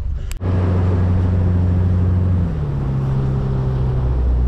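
Outboard motor of a small aluminium tinny running steadily under way, its note dropping a step about halfway through and again near the end as the throttle is eased back.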